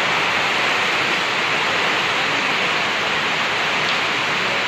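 Heavy rain pouring down, a loud, even, steady hiss.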